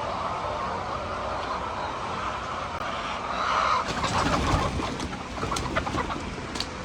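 Chickens clucking, with a few light clicks and knocks.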